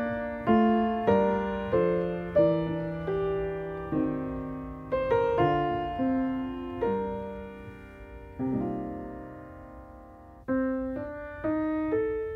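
Solo piano music: notes and chords struck and left to ring and fade, spacing out into longer held notes past the middle.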